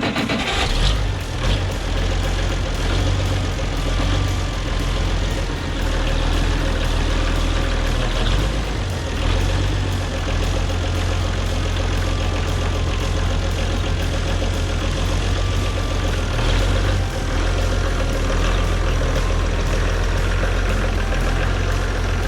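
Oliver 1650 Industrial backhoe's engine running steadily at a low, even speed with a deep hum.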